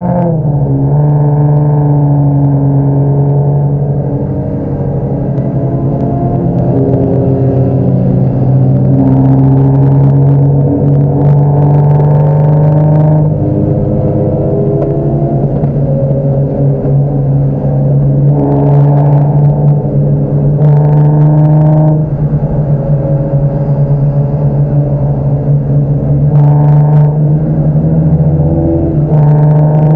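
Car engine and exhaust droning steadily at highway cruising speed, heard from inside the cabin, with the higher engine tones shifting every few seconds as the throttle changes.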